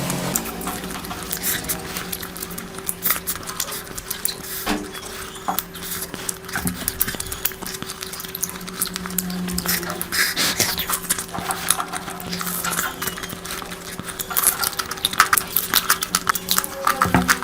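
Close-miked eating of curry: wet chewing and mouth smacking with clinks of plate and utensils, in dense irregular clicks over a steady low hum.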